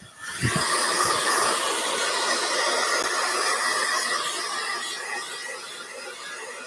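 Handheld hair dryer starting up and blowing air over a raccoon pelt to dry the fur: a steady rushing hiss that fades gradually over the last couple of seconds.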